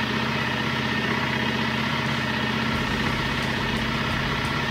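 Aprilia Falco SL1000's V-twin engine idling steadily at about 2,000 rpm.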